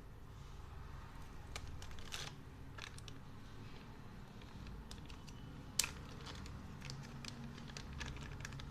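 Small plastic accessories and packaging being handled: scattered light clicks and crinkles, with one sharper click about six seconds in, over a low steady hum.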